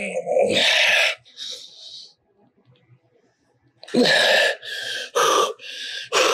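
A man's forceful, hissing breaths and strained exhalations while he pushes through lying leg curl reps to failure. There are two long breaths, a pause, then four shorter ones coming faster from about four seconds in.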